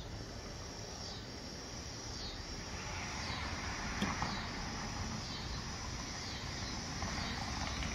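Outdoor insect chorus, a steady high chirring that pulses about once a second, with a faint click about four seconds in.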